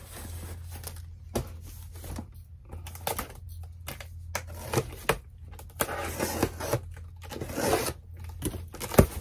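Cardboard shipping box being handled and opened by hand: scraping, tearing and rustling of cardboard, with scattered knocks and a sharp thump near the end.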